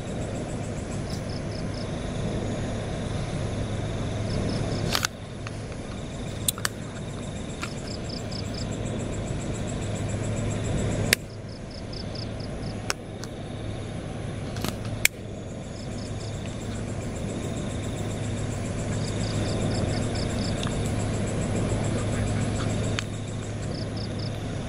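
Open-field night ambience: a steady low rumble and hum, with a faint high chirp repeating in short runs of four or five pulses, and a few sharp clicks.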